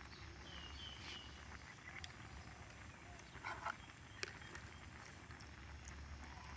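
Quiet outdoor background with a steady low hum, a few soft clicks and some brief high chirps about a second in.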